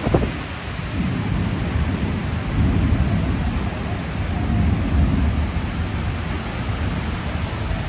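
Heavy rain pouring onto a corrugated metal roof and trees, with a long deep roll of thunder that builds about a second in and swells and fades twice.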